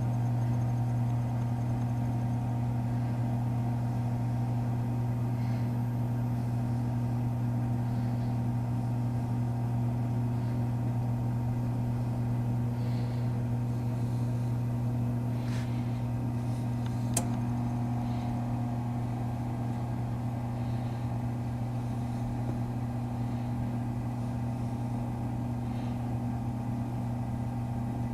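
Toaster oven running with a steady electrical hum while it bakes a circuit board to reflow the solder. A single sharp click comes a little past halfway.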